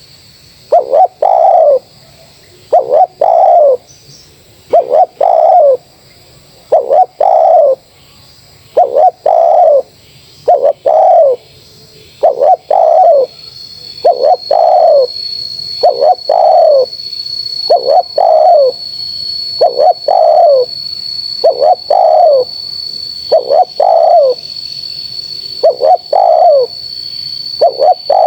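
Spotted dove cooing loudly and over and over, each short phrase a few falling coos, about one phrase every two seconds. A faint steady high-pitched whine joins about halfway through.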